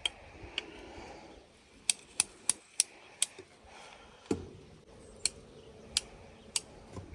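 About a dozen sharp, irregular metallic clicks and ticks from fence wire being worked by hand with tools, with one duller knock a little past the middle.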